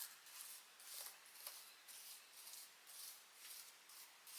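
Faint rhythmic wiping strokes of a soft cleaning tool brushing across a laptop keyboard and under its keys, about two to three short scratchy strokes a second.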